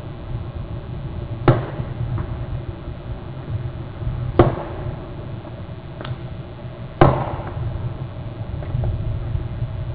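Three sharp knocks and a fainter fourth, each with a brief ringing tail, spaced a few seconds apart over a steady low rumble.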